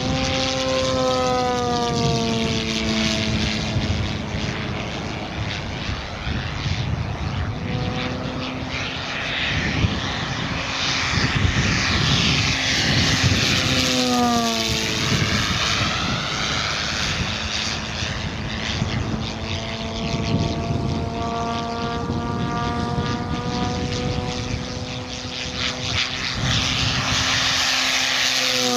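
Two-blade 24x8 propeller of an electric giant-scale P-51D Mustang RC model, driven by a brushless motor with no sound generator, giving a pitched prop tone over a rushing noise. The pitch drops as the plane sweeps past: near the start, steeply about halfway through on a low fast pass, and again at the end, rising slowly as it approaches in between.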